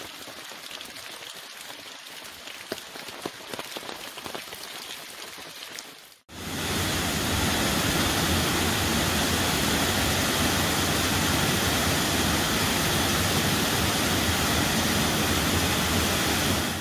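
Rain falling, a steady hiss with scattered drop ticks, then an abrupt cut about six seconds in to a wide cascading waterfall rushing steadily and much louder.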